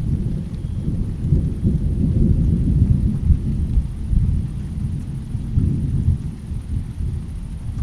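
Low rolling rumble of thunder during a rainstorm. It swells over the first few seconds and eases off toward the end, with steady rain behind it.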